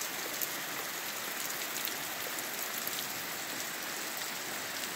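Steady rain falling on tall grass and trees: an even hiss with scattered individual drop ticks.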